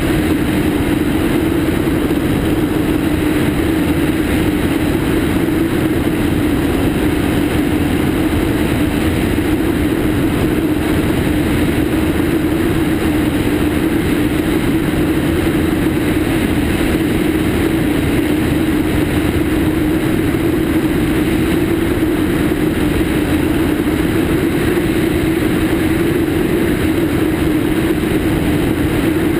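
Cessna 152's four-cylinder Lycoming engine and propeller running steadily in flight, mixed with a rush of wind over a camera mounted outside under the wing.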